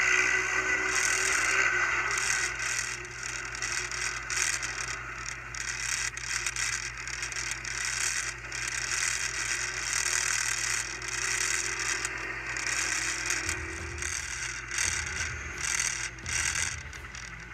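ATV engines running with a rattling, clattering noise over them, and a low engine note that rises and falls now and then.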